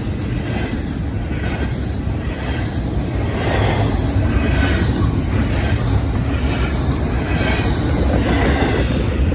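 Double-stack intermodal train's loaded well cars rolling past close by: a steady rumble of steel wheels on the rails, with swells of higher wheel noise about once a second.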